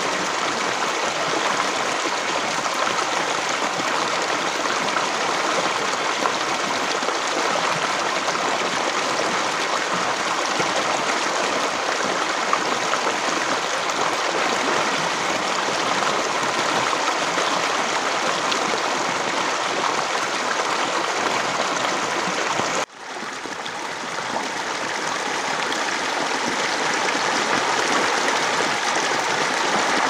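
Fast-flowing river water rushing steadily. About 23 s in the sound cuts out abruptly, then swells back to full over a few seconds.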